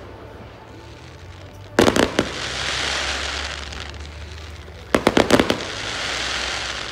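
Aerial fireworks going off in two quick volleys of sharp bangs about three seconds apart. Each volley is followed by a crackling hiss that fades away.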